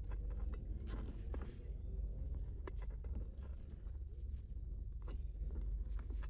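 Light scratching and scattered small clicks of objects being handled, over a steady low rumble.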